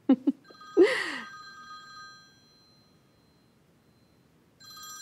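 Mobile phone ringtone: a chord of steady high tones rings about a second in and fades away, then rings again near the end.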